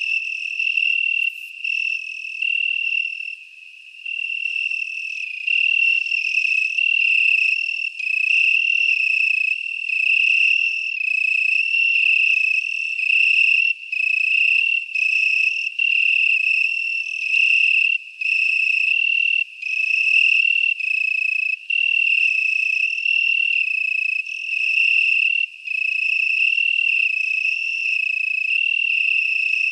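Insect trilling at one steady high pitch, in phrases of about one to two seconds separated by brief gaps.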